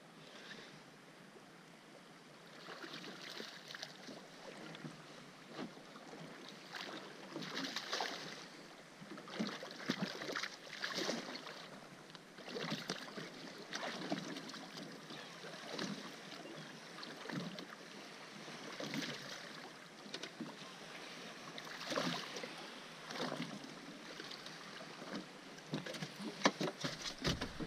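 Faint, irregular splashing and sloshing of water at a small boat's side as a hooked striped bass thrashes at the surface and is swung aboard, with a few sharper knocks near the end.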